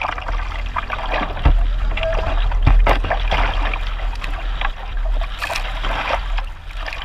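Strong wind buffeting the microphone over choppy water, with repeated splashes as waves slap the canoe and the paddle digs in.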